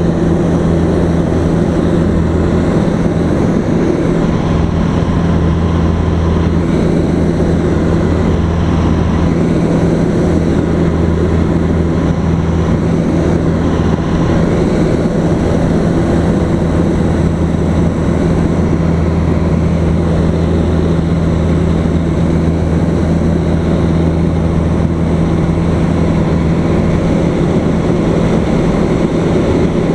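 Single-engine light airplane's engine and propeller droning steadily in flight, heard from inside the cockpit, with a constant low hum.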